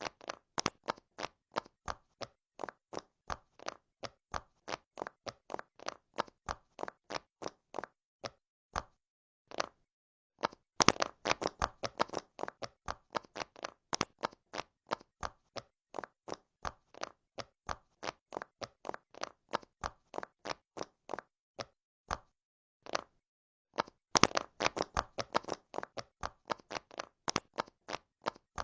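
Silicone pop-it fidget toy bubbles being pressed one after another, each giving a short sharp pop, several a second, with a couple of brief pauses.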